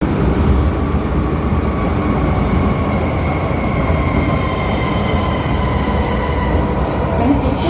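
First-generation MTR M-Train braking into a station with a loud brake squeal: several steady high-pitched tones held over the low rumble of the train.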